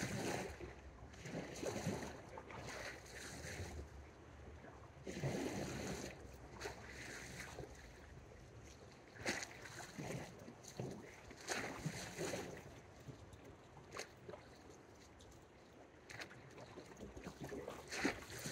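Small sea waves washing and splashing against shoreline rocks in irregular surges a second or a few apart, over a low steady rumble.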